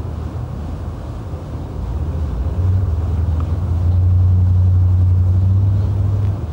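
Low steady drone of a cruise boat's engine under a haze of wind and water noise, growing louder about two and a half seconds in.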